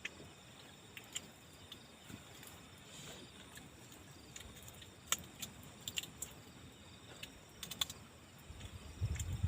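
Scattered small, sharp clicks and crackles over a quiet background. Near the end a low rumble of wind buffeting the microphone builds up.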